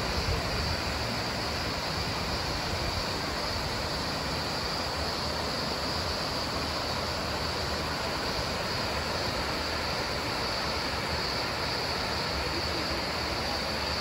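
Water rushing steadily over shallow rapids and small cascades on sandstone rock shelves, with a steady high-pitched hiss above it.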